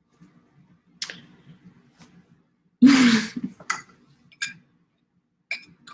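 Handling noise as a drink tumbler is lifted and drunk from: a few short sharp clicks and one louder brief burst of noise about three seconds in.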